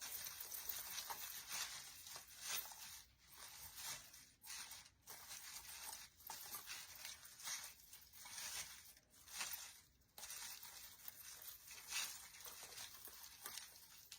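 Rustling and crinkling of an artificial pine swag's branches and ball ornament picks as they are handled and rearranged, faint and coming and going with short pauses.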